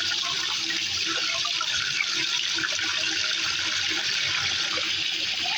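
Water running steadily from a tap or shower, an even rushing hiss.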